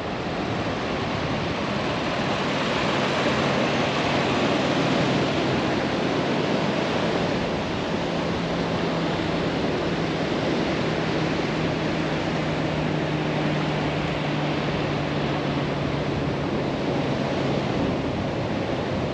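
Steady rush of surf and wind on the beach, with a faint low steady hum underneath for most of it.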